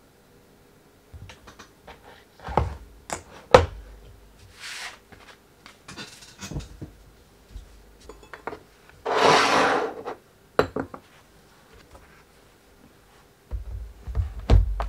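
Handling noises at a wooden desk: a few sharp knocks and taps, a longer rustling rub about nine seconds in, and low thuds near the end.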